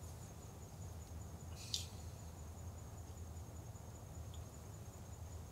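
Quiet room tone: a steady low hum with a faint high whine, broken by one short, sharp high-pitched click a little under two seconds in and a fainter tick later.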